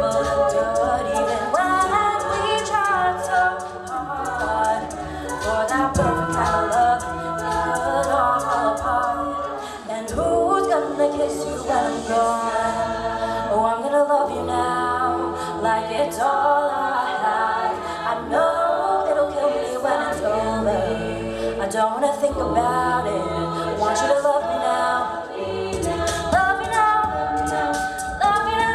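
All-female a cappella group singing in layered harmony, a soloist over the backing voices, with a steady vocal-percussion beat underneath.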